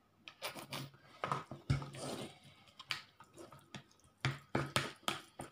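Green plastic spatula stirring minced pork and oyster sauce in a plastic bowl: irregular wet squelches and clicks of the spatula working the meat and knocking the bowl.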